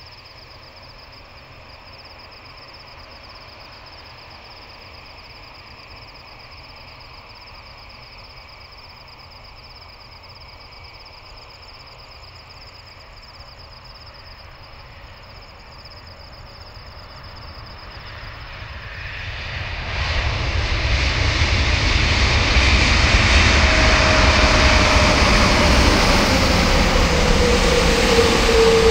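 Insects chirping steadily while the Airbus A330neo's Rolls-Royce Trent 7000 jet engines are faint. From about two-thirds of the way in, the jet noise swells to a loud steady rush as the airliner lands and rolls past close by. A whine falls in pitch near the end.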